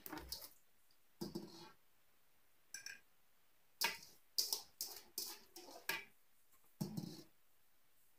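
Salted shredded cabbage being handled and packed into a glass jar by hand: a string of short, irregular rustling and crunching noises, busiest from about four to six seconds in.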